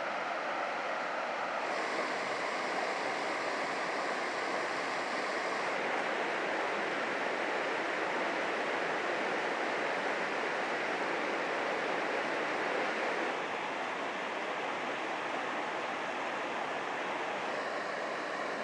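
Rocky mountain river rushing steadily over riffles and boulders, its sound shifting slightly in tone a few times.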